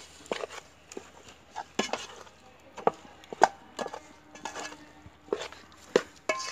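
A cooking spoon knocking and scraping against a pot: about fifteen sharp, irregular clinks.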